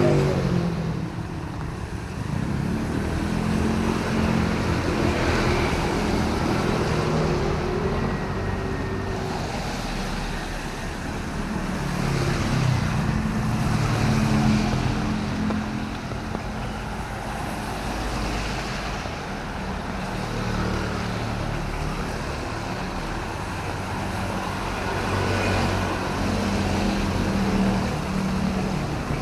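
Road traffic on a wet city street in drizzle: motor vehicle engines running close by over a steady hiss of tyres and light rain.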